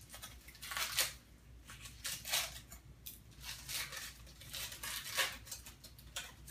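Foil wrapper crinkling and tearing as it is peeled by hand off a bath bomb, in short irregular bursts.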